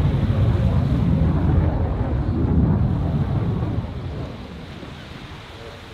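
Eurofighter Typhoon jet, its twin turbofan engines heard as a loud, deep rumble that fades about four seconds in as the aircraft moves away.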